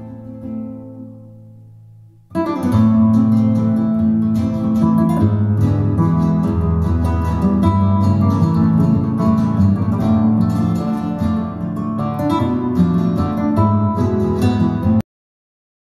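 Flamenco-style acoustic guitar music. A few held notes fade out, then fast strummed playing starts about two seconds in. The music cuts off suddenly about a second before the end.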